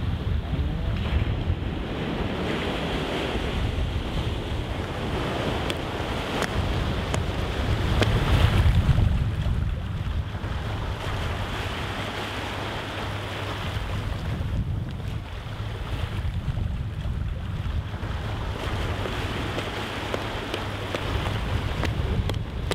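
Wind buffeting the microphone over the wash of sea surf on a rocky shore, a steady rushing noise that swells for a couple of seconds about eight seconds in.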